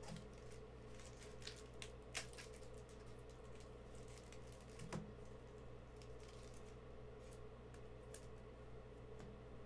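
Faint, scattered clicks and light rustling of Mosaic football trading cards being handled and flicked through by hand, with a couple of slightly louder clicks, over a steady low hum.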